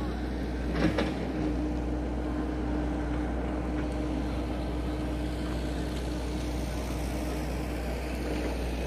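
Motor vehicle engine running at a steady, even note, with a low rumble underneath. Two short knocks come about a second in.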